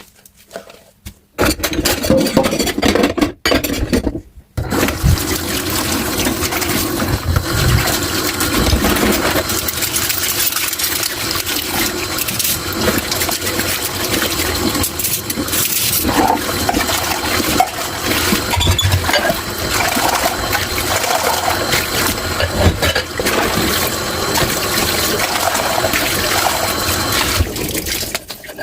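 Water from a kitchen tap running hard into a sink while dishes are washed. It starts about a second in, stops briefly near four seconds, then runs steadily and stops just before the end.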